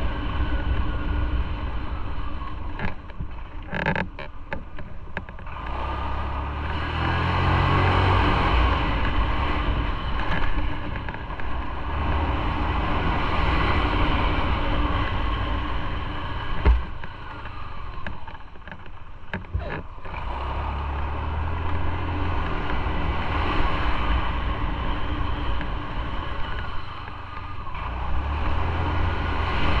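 Motorcycle engine running while riding, with wind and road noise; its low engine note swells several times as it pulls away and eases off. A single sharp knock sounds a little past the middle.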